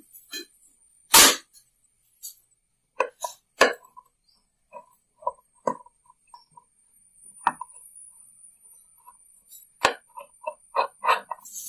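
Irregular metallic clicks, taps and short ringing clinks of hand tools and loose parts being worked on a sewing machine's mechanism during disassembly, with a sharp knock about a second in.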